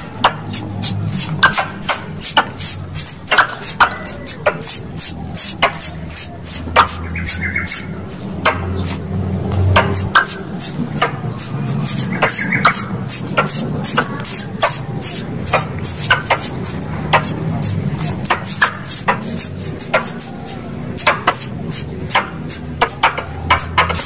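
Squirrel calls played as a lure for pest squirrels: a rapid run of short, high-pitched chirps, each falling in pitch, several a second, mixed with sharp clicks.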